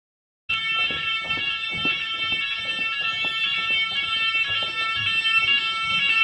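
Fire alarm sounding continuously: a steady, droning chord of several high tones that sounds like bagpipes. It starts abruptly about half a second in.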